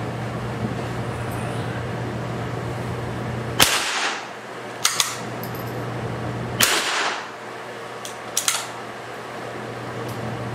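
Two rifle shots about three seconds apart, echoing in a small indoor range, each followed a second or so later by a quick pair of sharp clicks. A steady low hum runs underneath.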